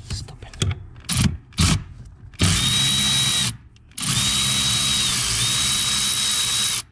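Cordless ratchet motor running on a long extension: two short blips, then a steady run of about a second, and after a brief pause a longer run of nearly three seconds with a thin high whine, cutting off suddenly.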